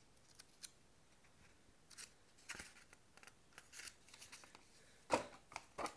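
Paper instruction booklet being handled and leafed through: scattered short paper rustles and soft crackles, with two louder sharp crackles near the end.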